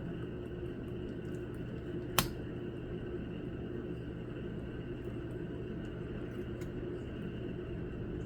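Steady low room hum with a single sharp click about two seconds in.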